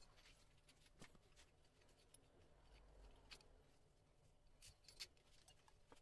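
Faint handling noise: a few scattered clicks and light rubbing of plastic cable ties and rubber as a honeycomb solid scooter tyre is worked onto its rim by hand.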